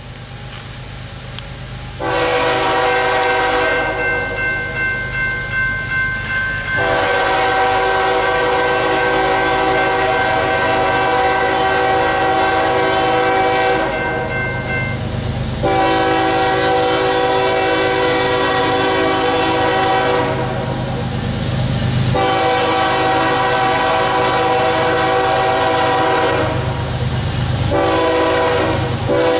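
Air horn of a GE ES44AC diesel locomotive sounding a series of long chord blasts as it approaches a grade crossing: the standard crossing warning. Diesel rumble grows louder as it nears.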